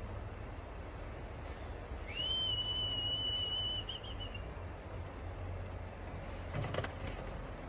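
A person whistles one long, steady, high note that slides up at the start and wavers at the end, calling the pigeons. Near the end there is a short clatter.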